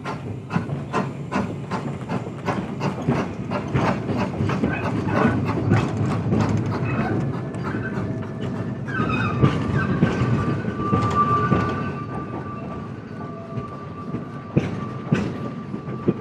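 A 2 ft gauge saddle-tank steam locomotive pulling away with its coaches, its exhaust beating evenly about three times a second. About nine seconds in, as the coaches pass, a long steady high squeal sets in and carries on.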